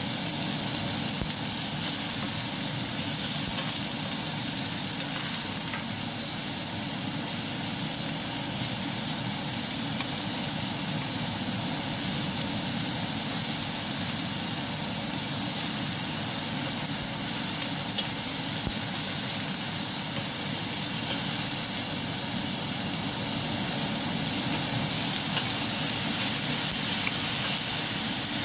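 Sliced chicken fillet stir-frying in a hot nonstick frying pan: a steady sizzling hiss, with a few faint clicks of the wooden spatula against the pan.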